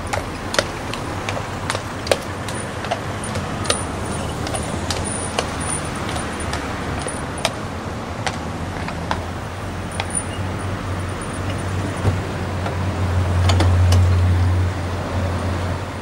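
Iron-shod hooves of a heavy draught horse clopping irregularly on the road as it is led around the tram, with harness chains jingling, over steady traffic noise; a passing vehicle's engine hum swells near the end.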